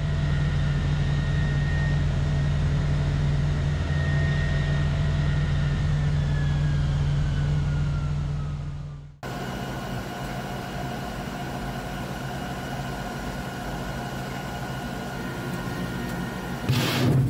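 Buk-M1 tracked missile launcher vehicle running steadily with a deep hum and a high whine that slides down in pitch. After a sudden cut, a quieter steady hum with several steady tones from the equipment inside its control cabin, and a short loud burst of noise near the end.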